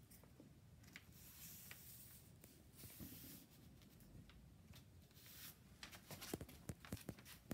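Faint scratchy strokes of a paint-loaded brush drawn across a paper map, with several light clicks and taps over the last couple of seconds.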